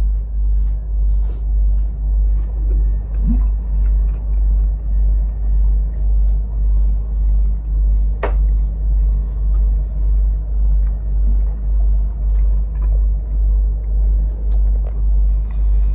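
A steady, very deep machine rumble that swells and fades evenly about twice a second, with faint eating noises and a few small clicks over it.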